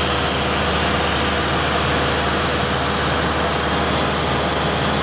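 Steady cabin drone of a light aircraft's engine and propeller in flight, heard from inside the cockpit: an even low hum under a constant rushing hiss, unchanging throughout.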